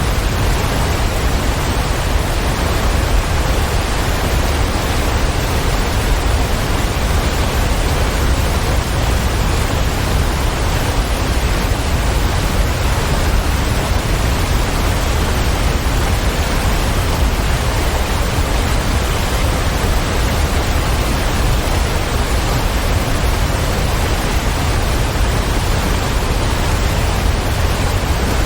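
Waterfall: a loud, steady, unchanging rush of falling water, heaviest in its deep low rumble.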